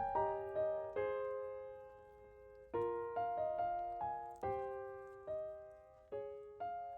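Slow, gentle piano background music: single notes and soft chords struck one after another and left to ring and fade.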